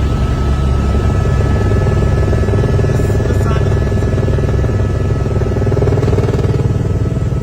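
Helicopter cabin noise in flight: a steady, loud, low drone of rotor and turbine with a thin steady whine above it.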